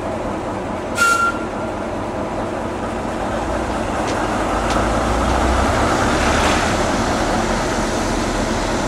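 A small shunting locomotive moving slowly along yard track with a goods van, giving a steady rumble that builds through the middle. About a second in there is one sharp metallic clank with a brief ring, and a couple of faint clicks follow later.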